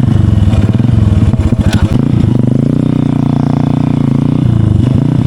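Motorcycle engine running loud through an SC Project aftermarket exhaust, the pitch climbing about two seconds in as it is revved, holding, then falling back near the end.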